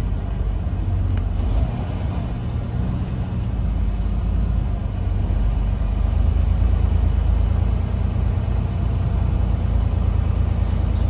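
Low, steady rumble of a semi truck's diesel engine heard from inside the cab while the truck moves slowly, getting a little louder about six seconds in.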